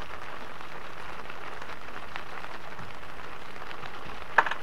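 Rain falling on a small fishing boat's awning: a steady hiss with scattered small ticks. A single sharp knock near the end.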